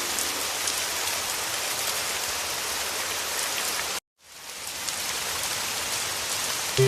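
Heavy rain falling steadily: a dense hiss with scattered drop taps. It cuts out abruptly for a split second about four seconds in and fades back up.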